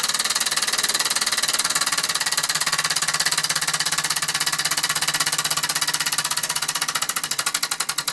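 Mamod SE2 toy steam engine chuffing rapidly with its throttle closed, running down on the steam left in it; the exhaust beats begin to slow near the end.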